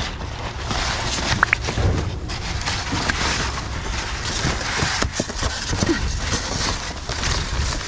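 Plastic sheeting and cardboard crinkling and rustling as they are rummaged by hand, with many small crackles and knocks, over a steady low rumble.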